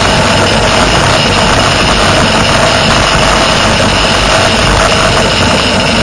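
Motorcycle engine running steadily at highway cruising speed, mixed with wind and road noise.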